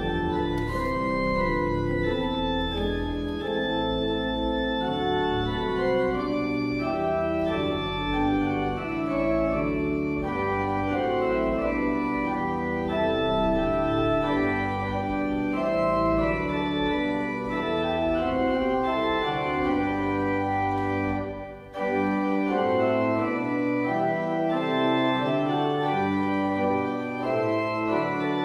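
Church organ playing a hymn in sustained block chords, with a brief break in the sound about three quarters of the way through.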